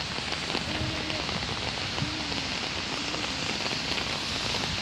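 Steady rain falling on wet pavement, an even hiss.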